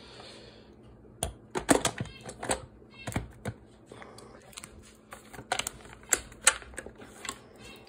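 Hard plastic clicks and knocks as the black lid of a Ninja food processor is handled and fitted onto the loaded bowl, snapping into place. Irregular taps and clatters, the loudest about two seconds in and again around six seconds.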